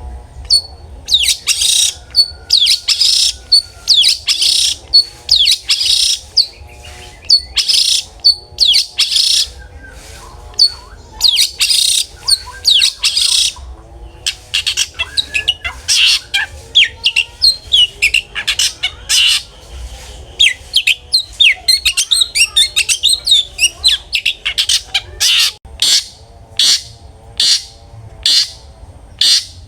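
Long-tailed shrike (cendet) singing loudly and continuously. Harsh, rasping bursts come over the first half, then a run of rapid, varied chirps and gliding notes. Near the end it turns to short sharp calls about twice a second.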